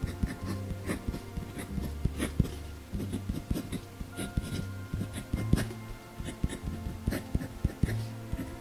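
Parker 51 Premium fountain pen with a fine nib writing on notepad paper: a run of short, light scratching pen strokes, over soft background music with steady low notes.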